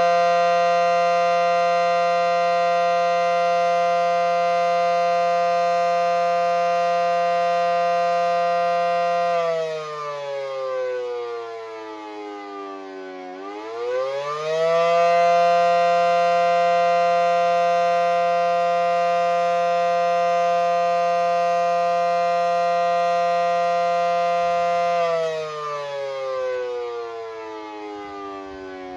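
Federal Signal SD10 outdoor warning siren sounding the attack signal: a loud siren tone holds at its top pitch for about ten seconds, winds down for about four seconds, winds quickly back up, holds again, and begins winding down once more near the end.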